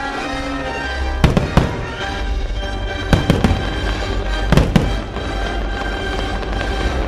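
Fireworks bursting in three quick clusters of sharp bangs over orchestral show music.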